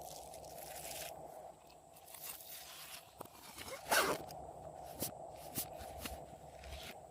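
Slime being worked by hand, giving scattered sticky crackles and clicks, with one louder snap about four seconds in.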